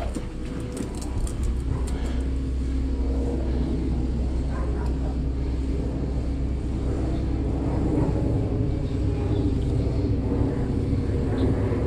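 Steady hum of a pressure washer's engine running, under the hiss of a spray wand wetting a wooden fence with oxalic acid solution to brighten the wood.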